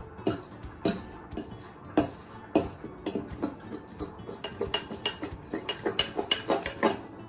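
A metal utensil stirring batter in a ceramic bowl, clinking and knocking against the bowl's sides in an uneven rhythm that quickens near the end.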